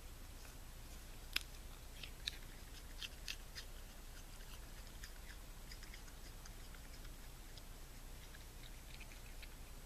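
Raccoon munching a piece of apple: faint crunching clicks, with a few sharper crunches about a second in and again between two and three and a half seconds in.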